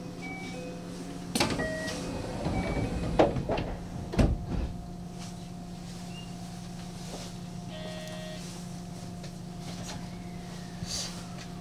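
Steady electrical hum of a standing electric train, with short electronic beep tones near the start and several sharp knocks in the first few seconds.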